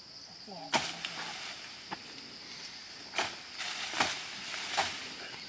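Leafy branches and twigs snapping off with about five sharp cracks as they are pulled and broken for animal fodder, over a steady high-pitched drone.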